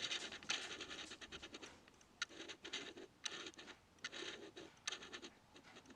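Faint scratching and irregular clicks of handling noise, hands rubbing and tapping on the gear close to the microphone.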